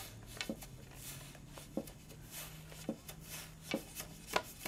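Wooden knocks and rubbing from weaving a rebozo on a hand loom as the shuttle is passed through the shed and the weft is packed down with the wooden sword. The knocks come about once a second and get quicker near the end.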